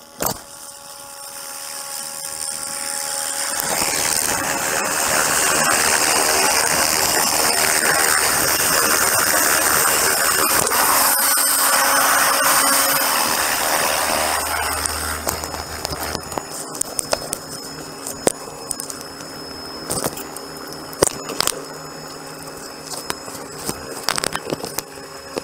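Helicopter hovering close by during a hot pickup: rotor noise and a steady high whine build up to a loud peak and then drop back about 16 seconds in, heard from inside the cabin, where many sharp clicks and knocks follow as the passenger climbs aboard and settles in.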